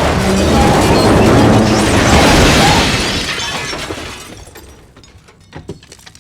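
Destruction sound effect: a sudden loud crash of things smashing and breaking, which dies away over a few seconds into scattered clinks and rattles of falling debris.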